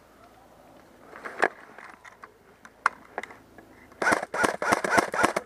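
A few separate sharp clicks, then from about four seconds in a rapid, even string of airsoft gun shots, about five a second, each with a short ringing snap.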